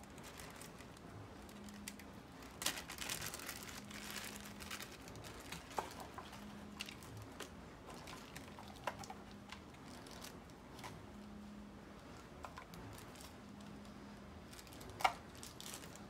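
Small plastic bag of computer case screws crinkling and rustling as fingers work it open, with a few light clicks. The crinkling is thickest a few seconds in, and there are a couple of sharper clicks near the end.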